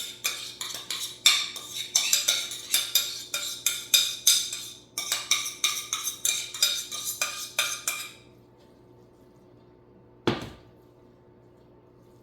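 A spoon scraping and tapping rapidly against a pot and dish as cooked rice is scooped out and spread in a layer, several clicks a second, stopping about eight seconds in. A single thump follows about two seconds later.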